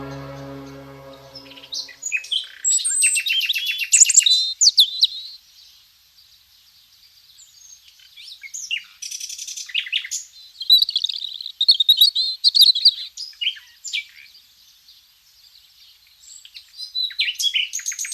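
Birds chirping and singing in quick, high trills and warbles, coming in bursts with short lulls. A held chord of background music fades out during the first second or so.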